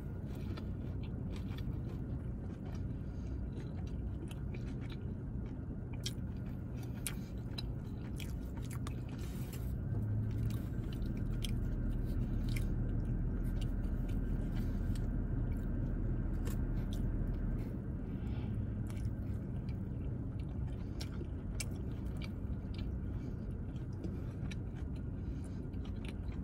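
Close-up wet chewing of a bite of chicken pesto pita wrap, with scattered small mouth clicks, over a low steady hum that grows somewhat louder for several seconds in the middle.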